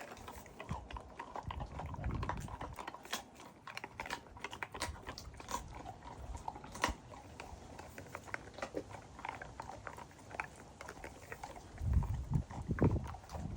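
A Boxer puppy chewing a dried beef lip, with irregular crunching and cracking bites as it gnaws. A few louder dull thumps come near the end.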